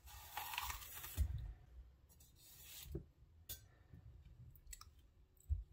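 A kitchen knife slicing through a green bell pepper's wall, making a crisp scraping crunch. The blade knocks sharply on the wooden cutting board about a second in. A few fainter knocks and taps follow as the cut pieces are handled on the board.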